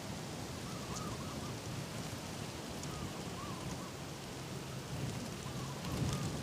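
Strong wind buffeting the microphone, a steady rumbling rush. Over it, a spotted dove coos faintly about three times, a few seconds apart.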